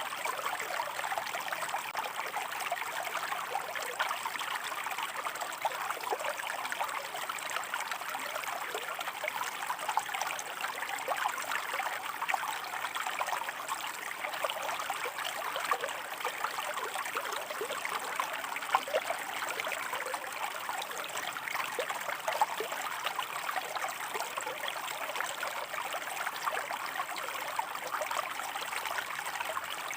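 Shallow stream of water running over rocks: a steady, even rush of flowing water, dotted with many small splashes and trickles.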